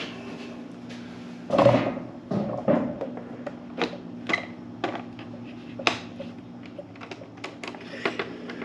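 Scattered clicks and knocks of plastic parts and hardware being handled while motorcycle bodywork is refitted, with one louder knock about a second and a half in, over a steady low hum.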